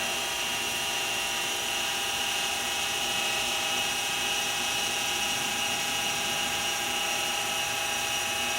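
Mini mill spindle running steadily with a constant whine, the cutter spinning just above the workpiece and not yet touching it while the head is lowered slowly.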